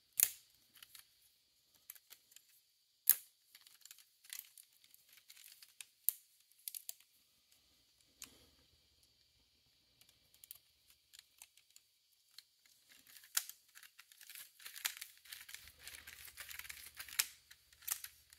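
Plastic arms and hinges of a 3D-printed print-in-place folding laptop stand being folded and unfolded by hand: sharp clicks every few seconds, then a denser stretch of plastic scraping and rattling near the end.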